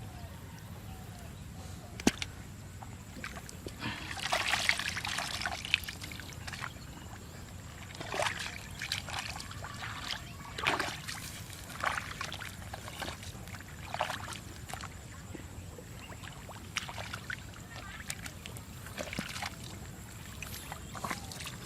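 Hands sloshing and splashing through shallow muddy water in short, irregular bursts every second or two, with one sharp click about two seconds in.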